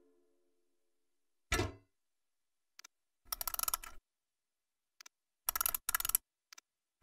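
Cartoon sound effects of a crank being fitted into a door knob and wound: a single thump about a second and a half in, then two short runs of rapid clicking, with a few lone clicks between them.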